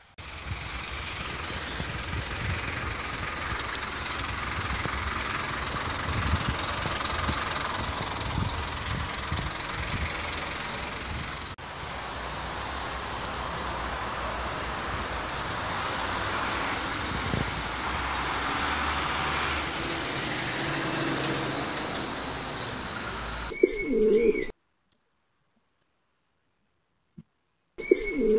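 Cars passing in street traffic, a steady rumble and hiss. Near the end this cuts off, and a pigeon coos twice with silence between.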